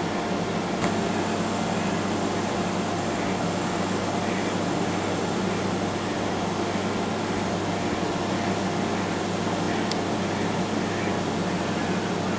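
Steady low engine drone with an even hiss over it, from a large container ship and the tugs escorting it.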